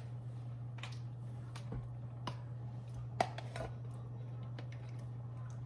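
Ricotta cheese being emptied from a plastic tub into a glass bowl: a few soft, irregular knocks and squishes over a steady low hum.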